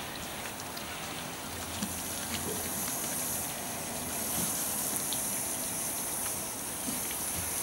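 Water spraying steadily onto a car body during a wash, a continuous hiss.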